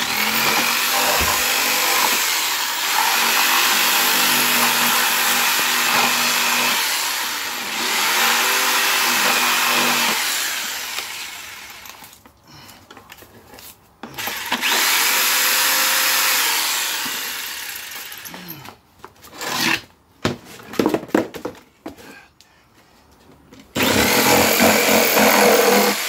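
Ryobi corded jigsaw cutting through a plastic ice chest lid: a long run of about ten seconds, then stopping and starting in shorter bursts, and running steadily again near the end.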